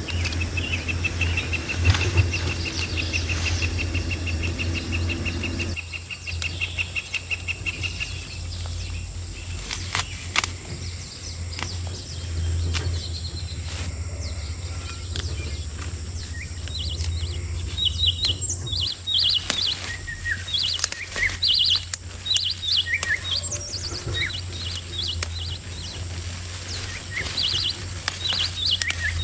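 Birds chirping, with short high chirps growing many and dense from about two-thirds of the way in. A rapid high trill runs through the first several seconds, and a steady low hum lies under it all.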